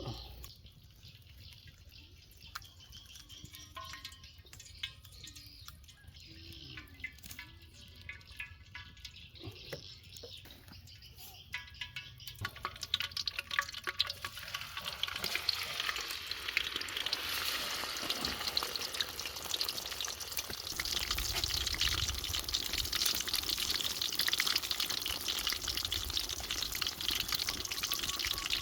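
Fish sizzling as it cooks: a dense crackling hiss that builds up about halfway through and stays steady, after a quieter stretch of scattered small clicks and knocks.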